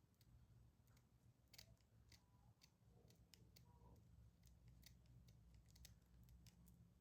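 Small scissors snipping at a wig, a string of faint, quick snips about one or two a second.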